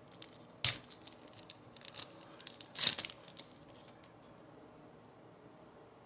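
Trading card pack wrapper and cards being handled: a sharp crackle under a second in, a few light clicks, and a short tearing rustle about three seconds in, then it goes quiet.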